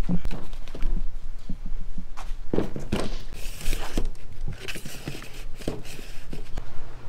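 Footsteps and irregular knocks, clicks and rustles of plastic hanging-basket pots and their hangers being handled, over a steady low hum.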